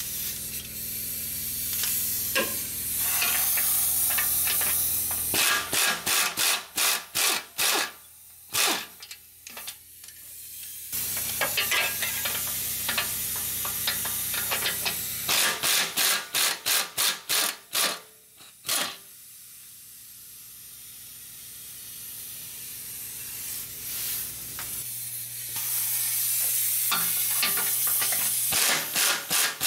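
Pneumatic wrench running on the exhaust nuts: long spells of a loud air hiss, broken three times by runs of quick bursts, about three a second, as the trigger is pulsed.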